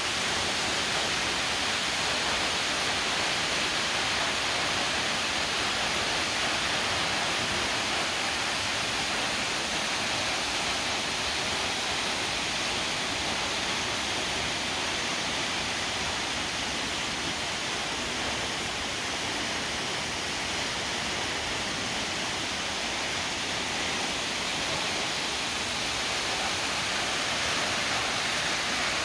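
Toccoa Falls, a tall waterfall, pouring steadily down a rock face into its pool: an even, unbroken rush of falling water, easing slightly midway.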